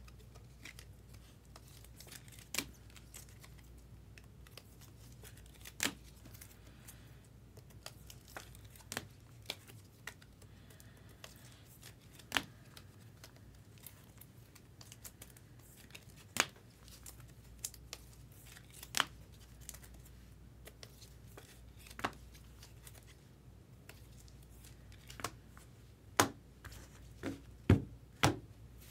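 Trading card pack wrappers being torn open and crinkled by hand, with separate sharp clicks every few seconds, under a faint steady low hum.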